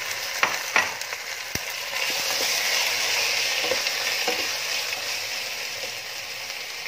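Raw chicken pieces sizzling in hot oil with onions, a steady frying hiss, while a wooden spatula stirs them and knocks against the pan a few times in the first few seconds.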